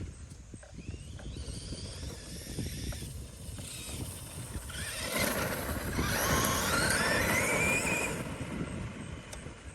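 Traxxas E-Revo electric RC truck driving hard. Its electric motor and drivetrain whine rises in pitch as it accelerates, loudest a few seconds in, over the noise of the big tires on the ground.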